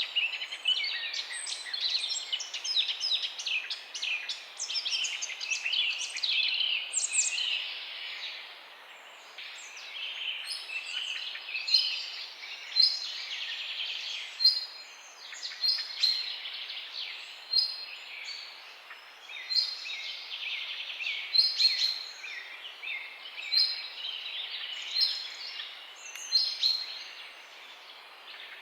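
Songbirds chirping in a morning chorus: a dense tangle of overlapping chirps for the first several seconds, then thinning to sparser short calls repeated every second or two.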